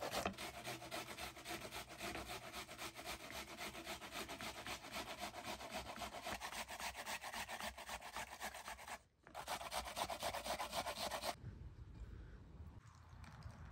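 Fast, steady rhythmic scraping, broken off briefly about nine seconds in and stopping about eleven seconds in.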